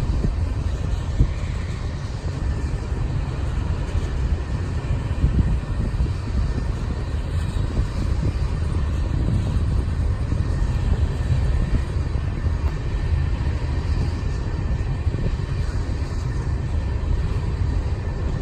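Freight oil train rolling past in a steady low rumble.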